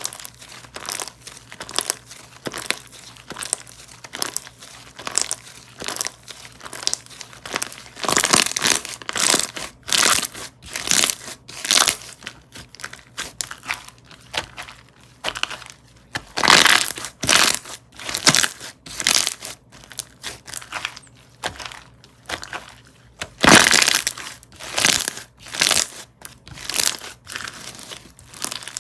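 Crispy-textured slime being squished and pressed by hand, making a dense run of crackling clicks and pops. The crackling comes in louder spells about a third of the way in, again past the middle, and near the end.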